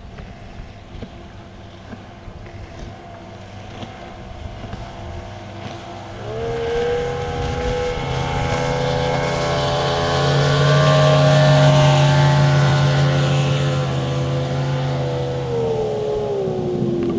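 High-speed motorboat engine on a flyby pass. It is faint at first, then rises in pitch and grows loud about six seconds in, holds a steady high note, and drops in pitch near the end as the boat goes past.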